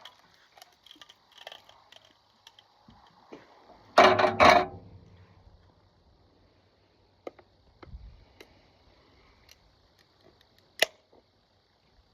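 Handling noises: a short, loud clatter of several sharp strokes about four seconds in, then scattered faint clicks and one sharp click near the end.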